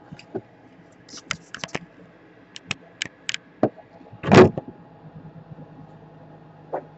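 Small clicks and taps of tools and laptop parts being handled on a workbench, with one louder knock about four seconds in, after which a steady low hum starts.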